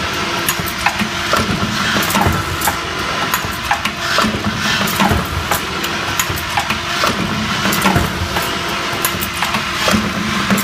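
Automatic iron-wire bucket-handle making machine running, a steady motor hum under a fast, irregular clatter of metal clicks and knocks as it feeds and bends the wire into handles.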